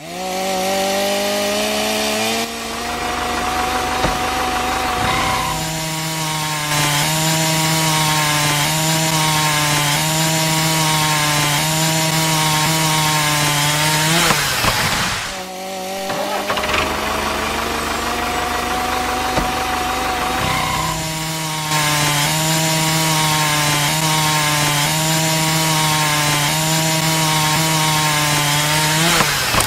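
A small electric motor spinning a miniature circular saw blade, switched on with a sudden start and whining up to speed. Twice the whine drops in pitch as the blade bites into a thin wooden branch and cuts through it, with a short break between the two cuts.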